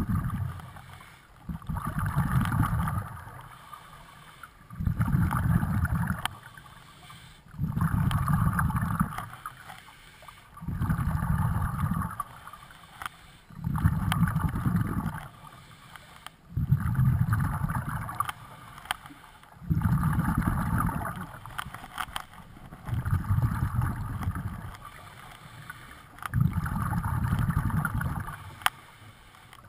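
Scuba diver's regulator underwater: exhaled bubbles rumble out in bursts of about a second and a half, roughly every three seconds, with quieter gaps between, the rhythm of steady breathing.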